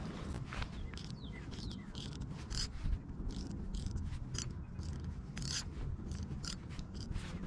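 A run of irregular sharp mechanical clicks, a few each second, over a low steady rumble, with a couple of short descending bird-like chirps about a second and a half in.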